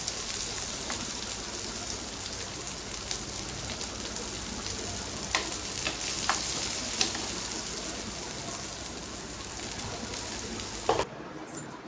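Chopped shallots, green chillies and cumin sizzling in oil on a flat dosa pan while being fried for a dal tempering, with the steel spatula clicking against the pan now and then as it stirs. The sizzle cuts off suddenly about a second before the end.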